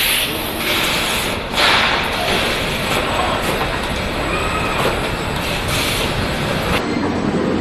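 Car assembly-line machinery noise: a steady mechanical rumble and clatter, with a couple of louder hissing clanks early on and faint metallic squeaks midway.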